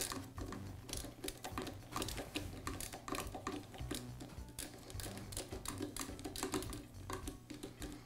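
Small, irregular clicks and scrapes of a hand screwdriver turning out the grounding screw on the drain auger's motor frame, with the wire leads being handled.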